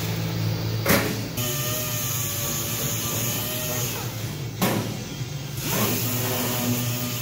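Air-powered random-orbital sander running steadily against a sheet-metal panel, a constant whir with hiss. Two sharp clicks break in, about a second in and again past midway.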